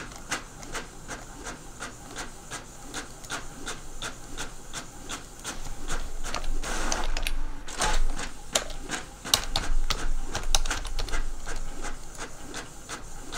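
Desktop printer printing: a fast, uneven run of mechanical clicks, with a louder rush of noise about halfway through.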